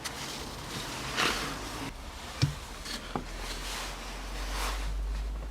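Soft rustling and a few light clicks of hands handling small gear-shift support parts and bushings while greasing them.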